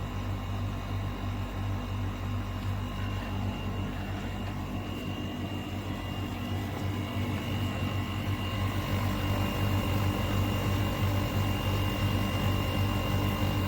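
Inventor Chilly 9000BTU portable air conditioner running in cooling mode: a steady, not loud hum with a low drone and a few faint steady tones above it. It grows slightly louder about two-thirds of the way through.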